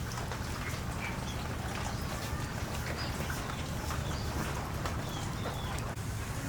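Steady rain falling, with scattered short high peeping calls of small birds heard through it.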